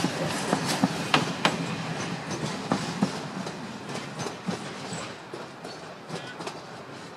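A Pendolino train's wheels clacking over rail joints and points as it moves away. The clacks are sharp and close together for the first second or so, then thin out and fade with the rumble of the train.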